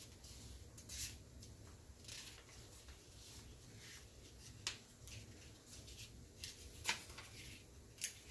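Faint rustling and crinkling of a thin protective sheet being handled and peeled off a clock face, in short scattered bursts with a few sharper crackles near the end.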